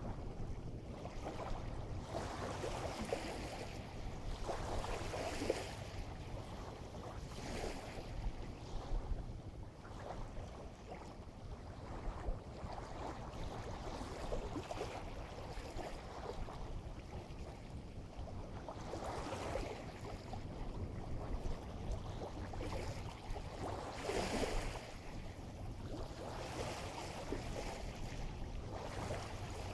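Waves washing in at the water's edge, swells of noise rising and fading at irregular intervals, over a steady low rumble.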